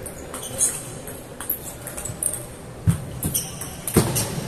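Table tennis rally: the celluloid ball clicks sharply off the rubber-faced paddles and the table in quick alternation, about once or twice a second. The loudest, heavier hit comes about four seconds in, over the faint echo of a large hall.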